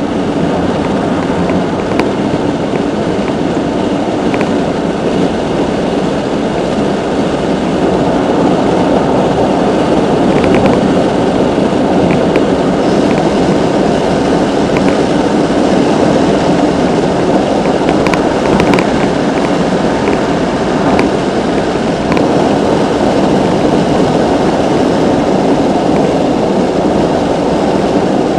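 Steady road and tyre noise with engine hum inside the cabin of a moving car, with a few faint ticks scattered through.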